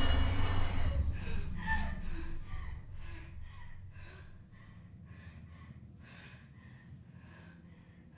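A woman panting hard in quick, even breaths, about two a second, slowly growing fainter. A low rumble of horror-score music fades out over the first couple of seconds.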